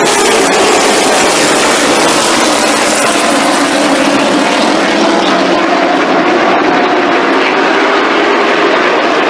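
A field of late model stock cars' V8 engines running together around the oval, a loud, steady drone whose pitch wavers slightly.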